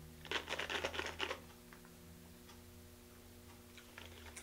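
A quick run of small, sharp clicks and rattles lasting about a second, then only a faint steady electrical hum.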